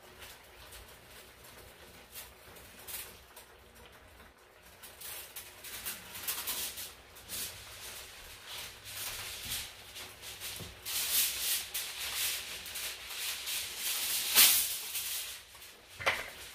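Rattling hiss with scattered light clicks at the stovetop pot as consommé is added, growing louder from about five seconds in and loudest near the end.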